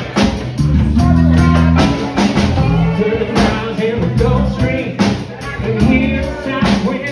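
Live band playing blues-rock with electric guitars and a drum kit, the drums keeping a steady beat under sustained bass notes.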